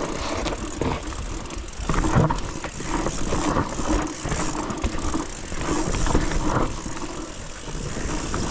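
Mountain bike riding down a rough, steep dirt trail: tyres rolling over dirt and rock, with irregular knocks and rattles from the bike and a low rumble of wind on the microphone.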